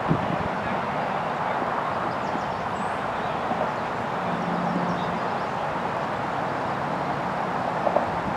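Steady outdoor background noise, an even hiss with a low rumble like distant traffic, with a short knock right at the start.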